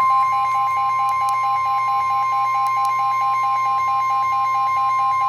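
Weather-warning alarm tone: a loud, steady high tone near 1 kHz, the 1050 Hz warning alarm of NOAA Weather Radio that comes before a severe thunderstorm warning. A slightly lower tone beeps rapidly beneath it.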